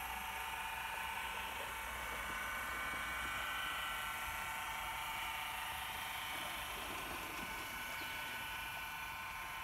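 Small electric motor of a radio-controlled model of the tug Smit London, whining steadily as the boat runs across the water, a little louder a few seconds in.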